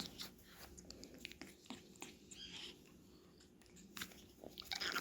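Faint, irregular clicking and smacking from a grey parrot chick's beak as it is fed.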